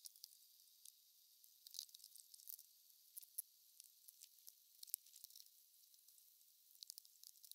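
Near silence: a faint high hiss with scattered small ticks.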